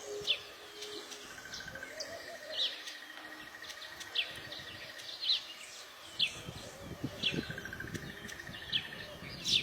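Weaver birds calling: short, sharp chirps repeated about once a second, over a faint buzzy trill.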